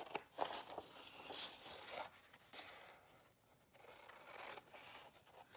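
Scissors cutting through a sheet of patterned designer series paper in a run of faint snips, with a short pause a little past the middle.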